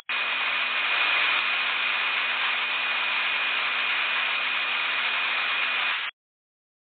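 Steady static hiss with a faint high whine running through it, in the audio of a mock emergency alert broadcast; it cuts off abruptly about six seconds in.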